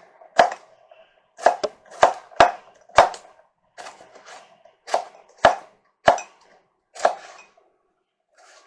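Kitchen knife chopping cucumber on a chopping board: about a dozen sharp, separate strokes at an uneven pace of one or two a second, stopping near the end.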